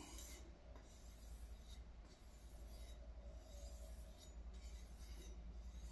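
Faint, light strokes of a Ryuko santoku knife's blade stropped back and forth along the smooth side of a leather belt glued to a wooden block, taking off the burr left by sharpening.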